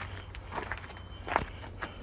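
A few faint footsteps over a low steady rumble.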